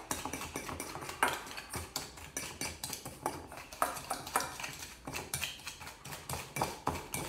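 A utensil scraping and clinking against a stainless steel mixing bowl in quick, irregular strokes, stirring a dry mix of brown sugar and spices and breaking up its lumps.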